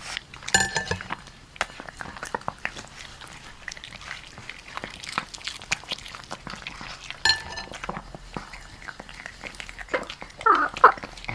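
A dog and a chicken scuffling: many quick clicks and scratches of claws and pecks. Short pitched animal calls come about half a second in and again around seven seconds, and a louder sliding call comes near the end.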